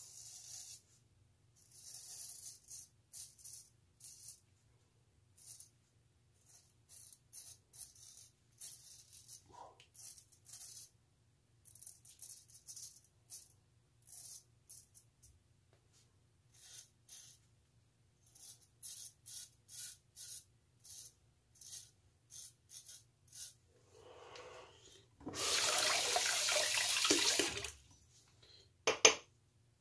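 Safety razor scraping through lathered stubble in runs of short, quick strokes. Near the end a tap runs loudly for about three seconds, rinsing the razor, and a single sharp knock follows just before the end.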